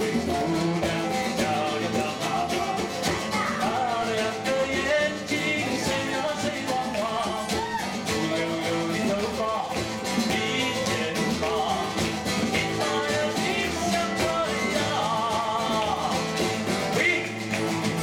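A live song: an acoustic guitar played with singing voices.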